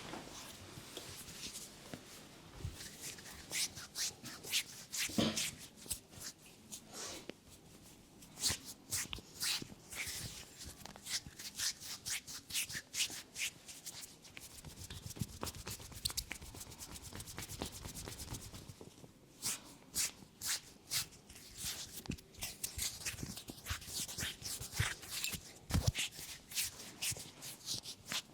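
Hands massaging a head: quick runs of crisp taps and scratchy rubbing on scalp and hair, with a louder thump near the end.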